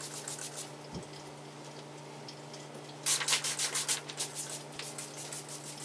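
Trigger spray bottle of water and a splash of Windex being pumped in quick hissing squirts, several a second, in two runs: briefly at the start and again from about three seconds in for about two seconds. It is wetting window film for a wet application.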